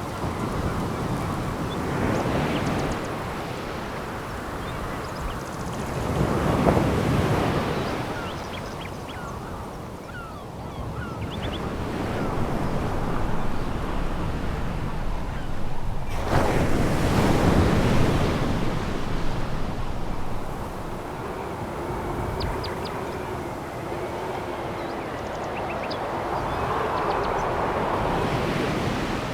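Sea waves breaking and washing over a pebble beach, rising in swells about every few seconds. The biggest surge comes just past halfway.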